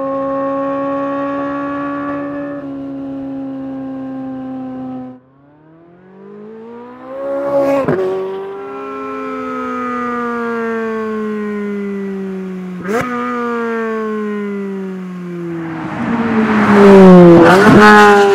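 2023 Chevrolet Corvette Z06's 5.5-litre LT6 flat-plane-crank V8 running hard, its exhaust pitch climbing and falling through several gear changes, with a brief drop-out about five seconds in. Near the end, at its loudest, the car passes close by with a rush of tyre and wind noise as the pitch falls sharply.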